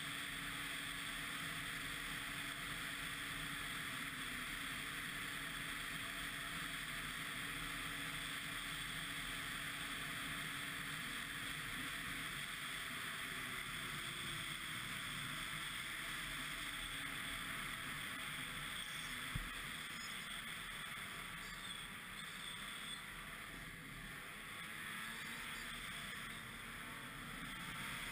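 Ski-Doo MXZ 600 X-RS snowmobile running under way: a steady drone of engine and track with wind rushing over the microphone, dipping a little quieter near the end.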